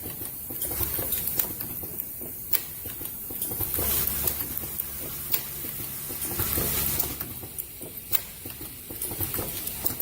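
Automatic plastic zipper slider mounting and combining machine running, with irregular sharp clicks and ticks over a steady hiss. A low hum comes in about three and a half seconds in and stops about seven seconds in.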